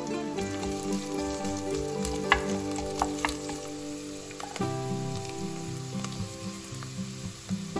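Sliced onions sizzling as they fry in oil in an enameled cast-iron pot, stirred with a wooden spoon, with a few light clicks around the middle. Background music plays throughout.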